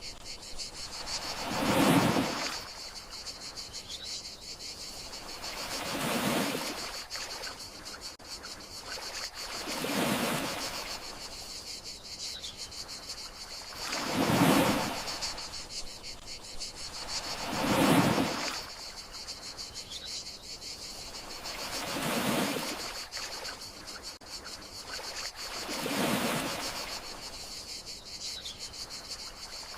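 Gentle sea waves rolling onto the shore, one soft swell about every four seconds, over a steady high chorus of crickets.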